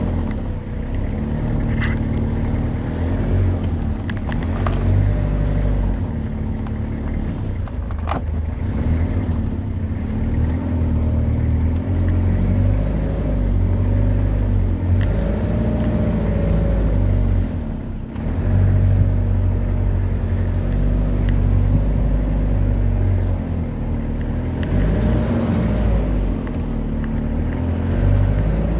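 Toyota Hilux SR5's 2.8-litre diesel engine pulling slowly in four-wheel-drive low range, first gear, over loose rutted dirt, its engine speed rising and falling as it goes. A couple of sharp knocks from the truck about two and eight seconds in.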